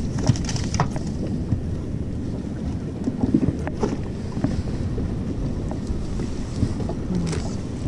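Steady wind rumble on the microphone of a small open fishing boat at sea, with a few light clicks and knocks scattered through it.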